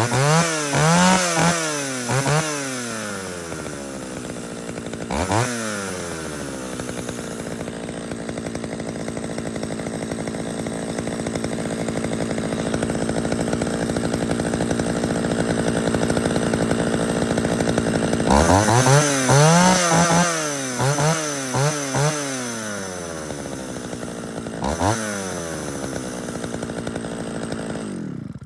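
Classic two-stroke chainsaw running: it is revved up and down in quick blips, settles into a steady run, is blipped again several times, and then cuts off suddenly as it is switched off.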